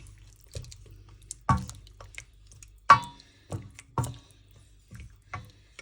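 Chicken pieces being stirred in water in a pan: liquid sloshing, with irregular knocks of the stirring utensil against the pan, about seven in all.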